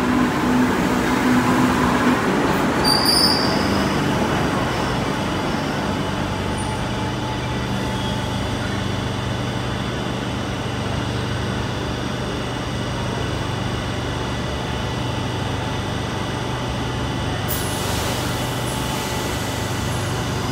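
Madrid Metro train running slowly along the platform: steady rumble of wheels on rail with a low motor hum. There is a brief high wheel squeal about three seconds in.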